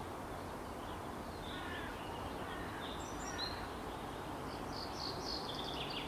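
Outdoor ambience: a steady background hiss with scattered, short, high chirps of small birds.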